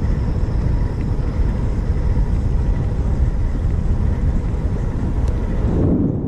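Steady, deep noise of riding a bicycle on a paved trail: wind on the camera's microphone mixed with tyre noise on the asphalt, starting to fade out near the end.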